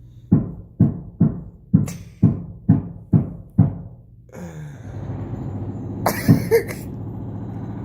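Sledgehammer banging on a wall: eight heavy thuds at about two a second. A steady machine noise then starts about four seconds in.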